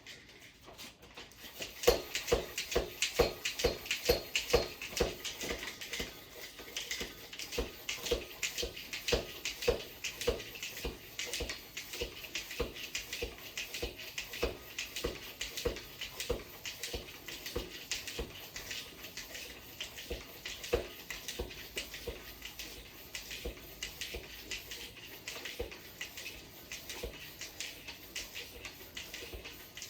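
Bicycle pump worked in quick, even strokes, about two a second, each stroke pushing a hiss of air into a tubeless mountain bike tire as it is inflated.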